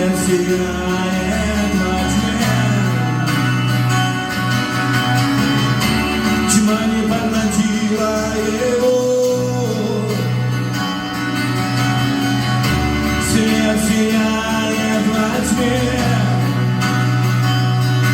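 Worship band music with guitar, a steady bass, and wordless vocal lines carried over.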